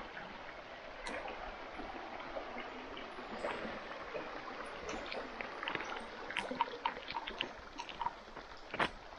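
Running water of a shallow rocky stream, a steady rush, with scattered sharp taps that grow more frequent in the second half.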